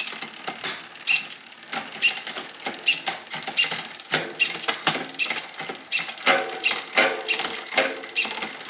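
Bicycle drivetrain turned by hand on a repair stand, with a Shimano XTR 12-speed chain running over a SRAM Eagle cassette. It clicks and rattles about two to three times a second while the SRAM GX Eagle AXS wireless rear derailleur shifts it down the cassette toward the smallest cog. There are brief humming stretches in the second half.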